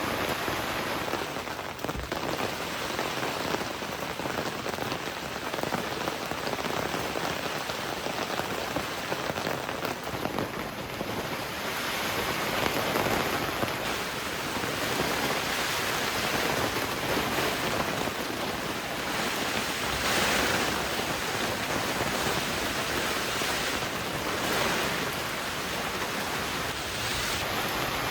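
Heavy rain falling steadily on a tent, with no break, growing heavier in waves several times.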